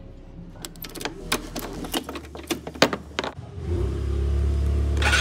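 Keys rattling and clicking in a motor scooter's ignition switch as it is turned on. About three and a half seconds in, the scooter's engine starts on the electric starter and runs steadily.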